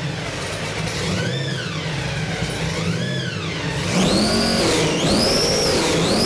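Supercharged 383 Chevy stroker small-block V8 with a 6-71 blower, running and being revved in blips. The blower's whine rises and falls with each rev: two moderate blips first, then from about four seconds in higher, louder revs with a sharper whine.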